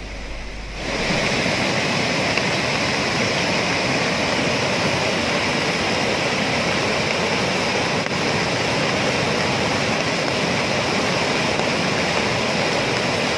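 Floodwater rushing in a fast torrent: a steady, even rush of water that sets in about a second in and holds level.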